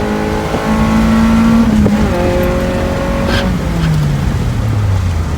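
Honda Prelude's H22A4 four-cylinder engine with a straight-piped exhaust, revving under load with the pitch slowly climbing. About three and a half seconds in the throttle comes off and the revs fall away steadily.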